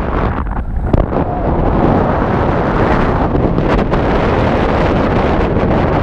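Airflow buffeting the camera microphone during a paraglider flight: a loud, steady rush of wind, a little quieter in the first second, with one short knock about a second in.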